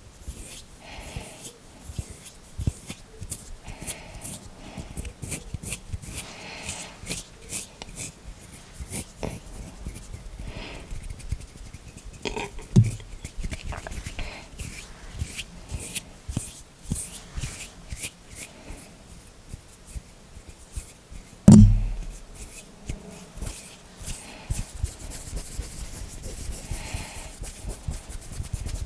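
Close-miked ASMR hand and finger sounds: a steady run of quick crackly rubs and taps, with a heavier thump about 13 seconds in and a louder one about 21 seconds in.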